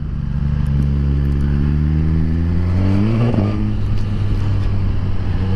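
Suzuki GSX-R1000R inline-four sportbike engine pulling away under throttle, heard from inside the rider's helmet. The revs climb steadily for about three seconds, then drop sharply at a gear change, and the engine runs on steadily.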